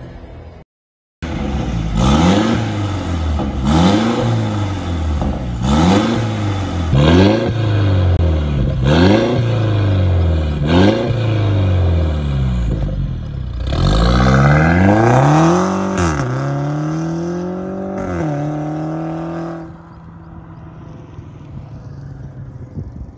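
Mercedes-Benz C300 (W205) 2.0-litre turbocharged four-cylinder engine blipped repeatedly through an aftermarket RES exhaust, a deep note. There are about seven quick revs, one every two seconds or so, then two longer revs, and it settles to idle. Near the end the sound drops to a quiet low hum.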